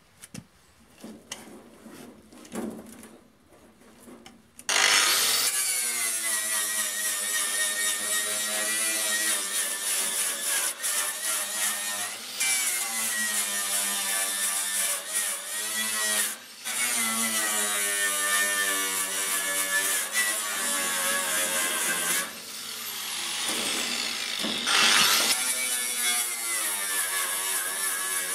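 A few light handling knocks, then about five seconds in an angle grinder with a wire brush starts and runs steadily, scouring rust off a steel sheet. Its pitch sags and recovers now and then as it is pressed into the metal. Near the end it briefly winds down and spins back up.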